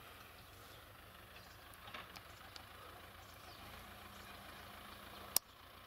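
Faint, steady running of a distant farm tractor's engine, with a single sharp click near the end.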